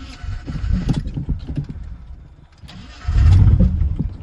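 Chevrolet Silverado's 4.8 L V8 being cranked on the starter in a cold start after months of sitting, sputtering and close to firing. There are two cranking attempts, a pause about two seconds in, then a louder burst about three seconds in.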